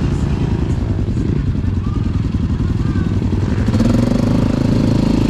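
ATV engine running, its pulsing note stepping up to a higher, steadier pitch about four seconds in as the throttle opens.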